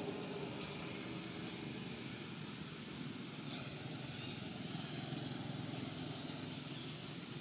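Steady low background rumble with a faint brief tick about three and a half seconds in.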